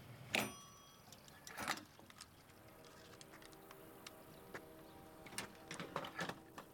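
Old gas pump being worked: two sharp metallic clanks of the pump and nozzle, then a faint steady hum as the pump runs, with a few more clicks near the end.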